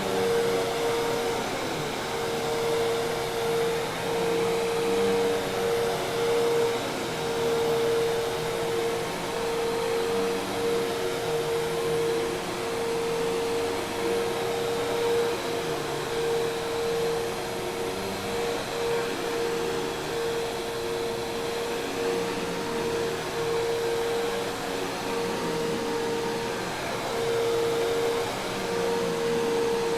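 Hoover Task Vac commercial vacuum cleaner running steadily: a dense rush of air with a strong, steady motor whine.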